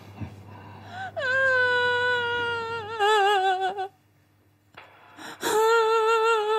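A woman crying in two long, drawn-out wails that waver in pitch. The first starts about a second in and slides downward; the second follows after a short break with a sharp catch of breath.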